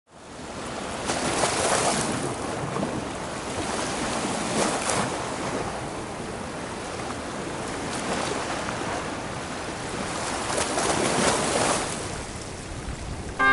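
Small sea waves washing against a concrete seawall, swelling and falling back about every three seconds.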